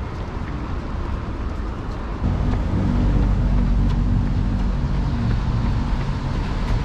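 Street traffic noise, with a nearby vehicle engine humming loudly and steadily, low in pitch, from about two seconds in for several seconds before easing off.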